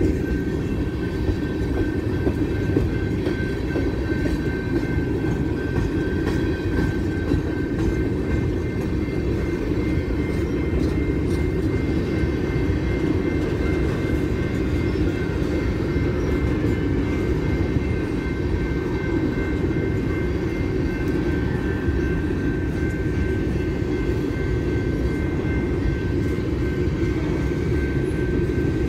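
BNSF coal train's gondola cars rolling past on the rails: a steady, even rumble of wheels on track, with a faint steady high tone above it.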